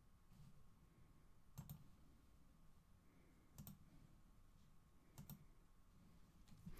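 Near silence with a few faint computer mouse clicks, three main ones about two seconds apart, each a quick pair of clicks.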